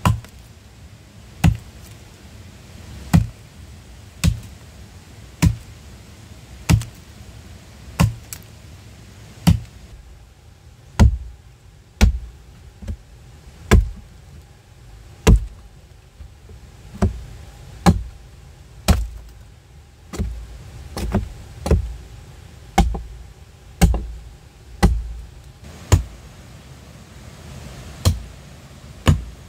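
Repeated blows of a hand tool on wood, about one every second or so, coming quicker in the middle.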